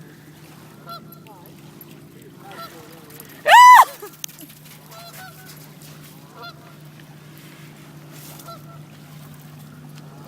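A goose honks once, very loud and close, about three and a half seconds in, with fainter honks and calls scattered before and after over a steady low hum.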